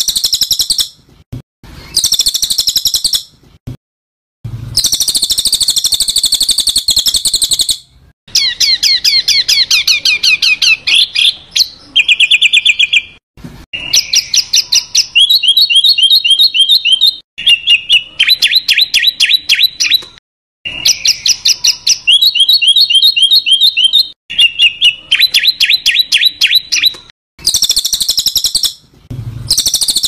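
Songbird tutoring recording (masteran) of harsh 'kasaran' calls: rasping, buzzy bursts alternating with long, fast rattling chatter trills, repeated with short gaps between phrases.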